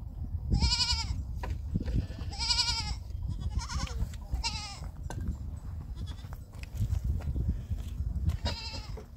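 Goats bleating: several short, quavering bleats in quick succession, then one more after a pause of a few seconds.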